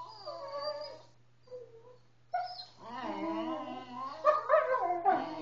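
Dogs whining and yipping in play, with high, wavering whines that rise and fall. A short call comes after a brief pause, then the whines run almost without a break and grow louder in the second half.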